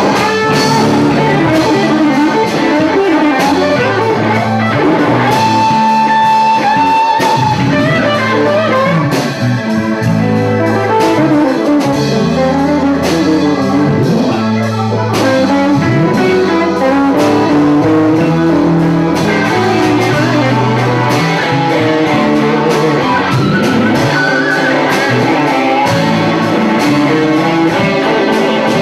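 Live blues band playing a slow blues, an electric guitar soloing with bent, gliding notes over bass and drums; one high note is held for about two seconds near the start.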